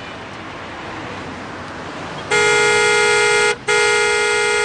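Car horn honking: a long steady blast starting about halfway through, a brief break, then a second long blast.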